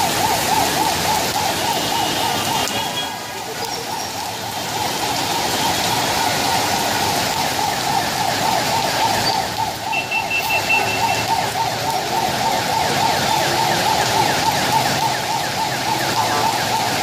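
Heavy rain pouring steadily onto a flooded street and pavement, a dense continuous hiss, with a couple of brief high tones about two and ten seconds in.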